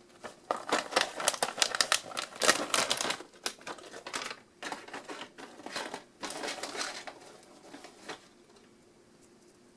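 Plastic snack bag being opened and rummaged through: a run of irregular crinkling and tearing crackles that dies away about seven seconds in.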